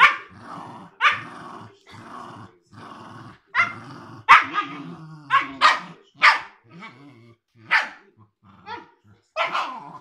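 A Siberian husky puppy and a Cairn terrier play-fighting, vocalising: low growls for the first few seconds, then a string of short, sharp barks and yips, roughly one or two a second.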